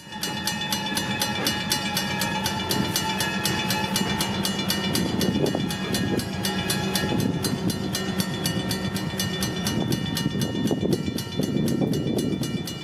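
Railroad grade-crossing bell ringing in a rapid, even rhythm of several strikes a second, over the low steady running of a diesel freight locomotive's engine as it approaches slowly.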